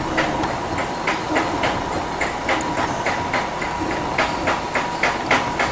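A machine running with a regular clacking, about three clacks a second, over a steady hum with a thin whine.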